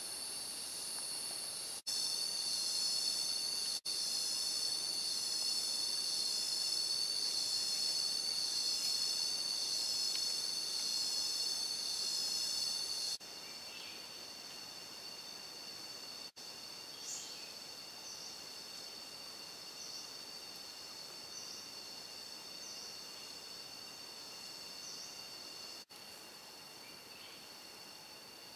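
Tropical forest insect chorus, a shrill steady drone of high layered tones. It is loud for the first dozen seconds, then drops to a quieter drone with short rising chirps repeating every second or two.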